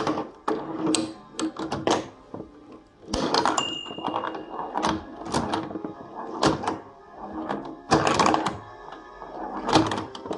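Home-built LEGO pinball machine in play: irregular plastic clicks and knocks from the ball, flippers and bumpers, mixed with the machine's electronic beeps and music-like sound effects.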